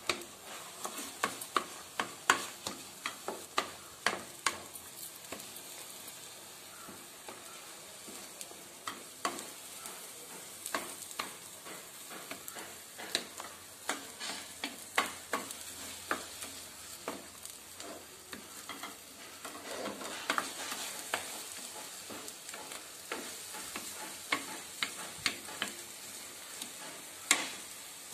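Wooden spatula scraping and knocking against a metal pot in frequent, irregular strokes while stirring a thick blended beef brain mixture, over a steady sizzle as the mixture's water cooks off.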